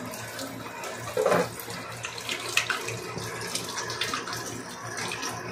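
Water running steadily from a tap into a sink while hands are washed under the stream, with a brief louder sound about a second in.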